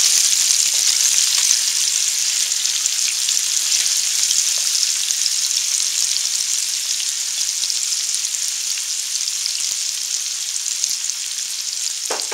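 Sliced onions frying in butter and beef drippings in a hot nonstick pan: a steady, crackling sizzle that eases off gradually as the cold onions take the heat.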